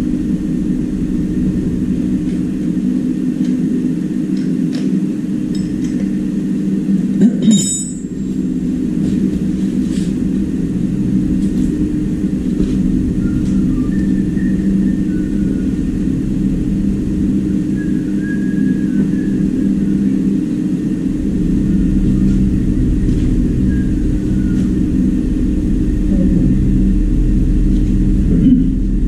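A steady, loud mechanical hum, likely a motor, with a sharp knock about seven seconds in; the deepest rumble grows stronger about two thirds of the way through.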